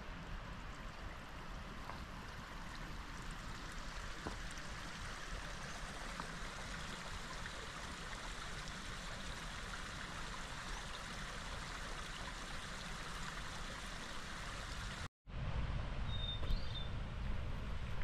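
A stream running steadily with an even rush of water. About fifteen seconds in, the sound drops out for an instant. What follows is louder and lower, with one short high chirp.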